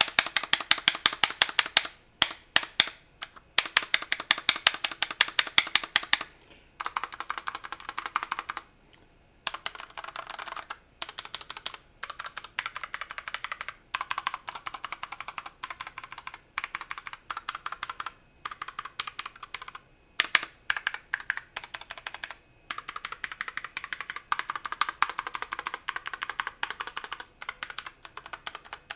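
Fast typing on a Zifriend ZA98 mechanical keyboard: rapid runs of clacking keystrokes, broken by a few short pauses, as a sound test of the board.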